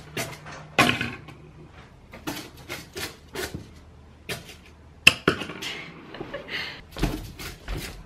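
A plastic rainbow coil spring toy walking and flopping down carpeted stairs, its coils clacking together and knocking on the steps in a string of irregular clicks and knocks, the loudest about a second in, about five seconds in and about seven seconds in.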